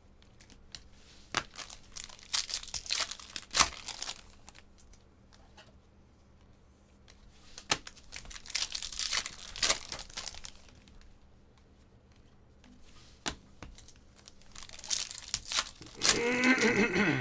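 Foil wrappers of Topps Chrome baseball card packs crinkling and tearing as they are ripped open, in three separate bursts of crackling.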